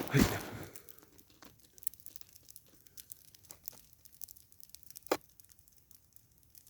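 Crackling, crumpling noise right against the microphone as a camera on a tripod is handled and adjusted, fading within half a second, then scattered faint clicks and one sharp click about five seconds in.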